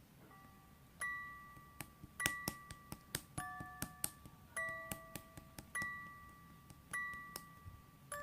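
Gentle chime-like background music: bell notes struck about every second and a bit, each ringing and fading, with irregular sharp clicks between them.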